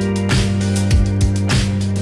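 Background music with a steady drum beat over held bass notes.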